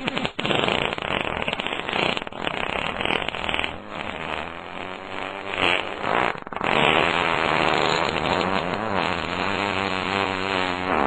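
Fart sound effects: rough, sputtering farts through the first half, then, after a brief break about six and a half seconds in, a longer fart with a clear pitch that wavers.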